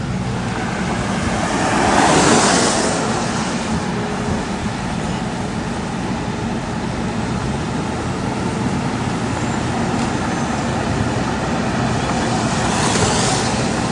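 Road traffic noise: a steady engine hum and tyre noise, with two vehicles passing by, one about two seconds in and one near the end.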